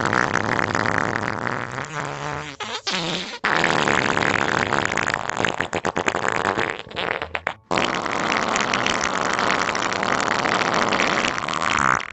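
Long pooping-and-farting sound effect: a continuous string of rattling, sputtering fart noises made of rapid pulses, with brief gaps about three and a half and seven and a half seconds in.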